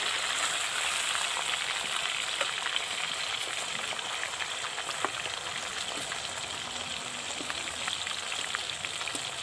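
Pieces of fish shallow-frying in hot oil in a kadhai: a steady sizzle with many small crackles and pops, one sharper pop about halfway through.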